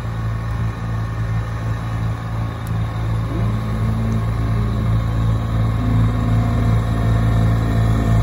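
Kubota LX3310 compact tractor's three-cylinder diesel engine running steadily under load, driving its front-mounted snowblower through fresh snow. It is a steady low drone that grows louder as the tractor approaches.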